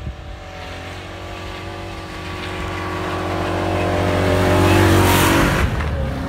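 Off-road SUV engine pulling hard through deep snow, growing louder as the vehicle approaches and passes close by. About five seconds in, a loud hiss of snow sprays from the wheels as it goes past.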